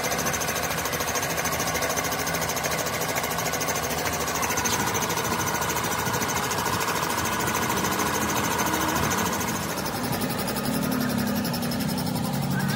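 An engine running steadily in the background with a fast, even pulsing. A low hum joins about ten seconds in.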